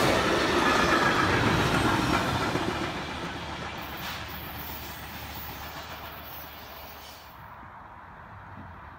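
Freight wagons of a passing train rolling by close at hand, steel wheels on the rails, the sound fading as the train moves away. It drops abruptly to a quieter steady background about seven seconds in.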